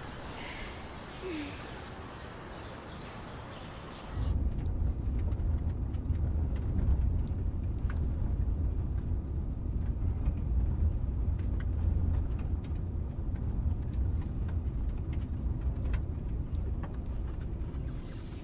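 Steady low rumble of a moving coach bus heard from inside the passenger cabin. It starts suddenly about four seconds in, after a quieter stretch of ambience, with faint light rattles over it.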